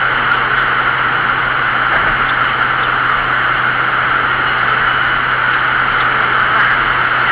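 Steady road and wind noise of a moving vehicle: an even hiss with a low hum underneath, unchanging throughout.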